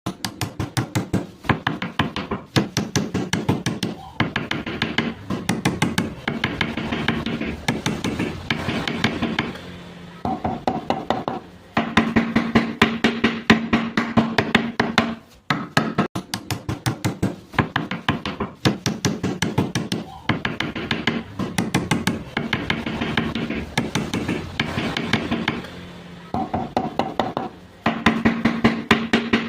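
Background music with a fast, steady beat, its passages repeating as a loop.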